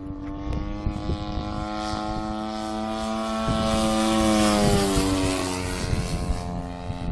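35% scale Sbach radio-controlled aerobatic plane making a pass overhead: its engine and propeller drone grows louder, peaks about four seconds in, then drops in pitch as it goes away.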